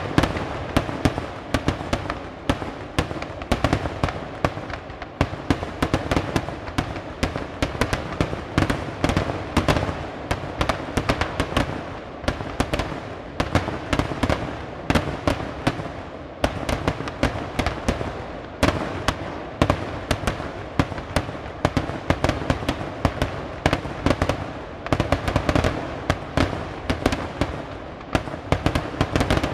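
Fireworks going off in a dense barrage: a rapid, unbroken string of sharp bangs and cracks, many a second.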